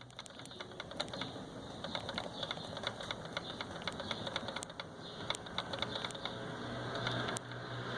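A loose part inside the door latch of a new Ford Ka rattling as the door is shaken: a quick, irregular clatter of light clicks.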